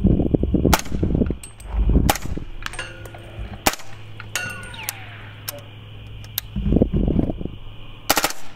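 Suppressed 300 Blackout AR-15 with an 11-inch Noveske upper and a Dead Air Sandman-L suppressor, fired semi-automatically: single shots at uneven intervals of a second or so. Some shots are followed by a short metallic ring of steel targets being hit.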